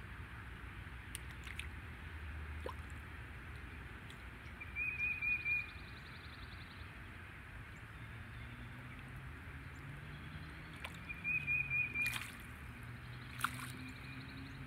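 Quiet water ambience with faint trickling and dripping around a golden retriever standing in shallow water. A short, high, chirping call is heard twice, about five seconds in and about eleven seconds in, and a low steady hum comes in about eight seconds in.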